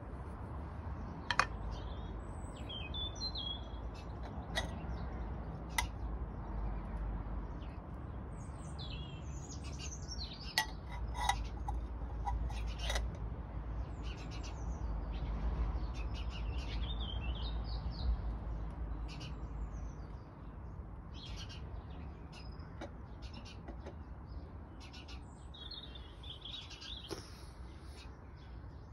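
Small birds chirping and calling over a low steady rumble that falls away about two-thirds of the way through, with a few sharp knocks in the first half.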